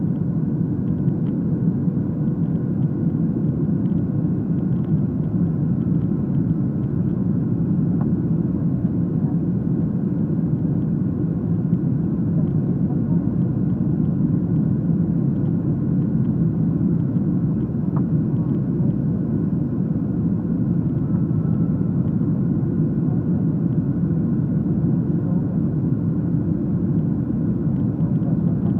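Steady cabin rumble of a Boeing 737-300 airliner on its descent to land, a low, even roar of engines and airflow heard from a window seat inside the cabin.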